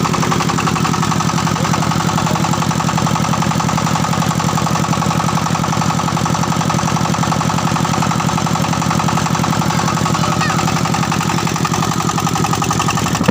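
Diesel engine of a mobile grain-hulling mill running steadily, with a fast, even firing beat.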